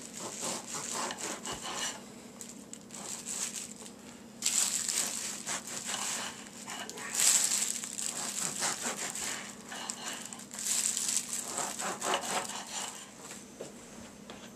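Knife sawing slices off a loaf of bread, with back-and-forth scraping strokes in three main spells of a second or two each.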